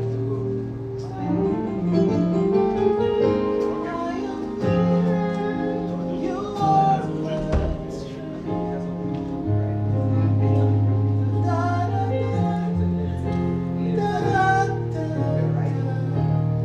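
Band music played through a sound system during a sound check: singing over plucked guitar, with long held bass notes that change every second or two.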